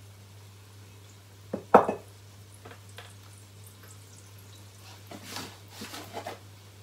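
A small drinking glass knocks against the countertop in a quick double knock about one and a half seconds in, followed by scattered small clicks; near the end a paper bag of flour rustles as a hand goes into it.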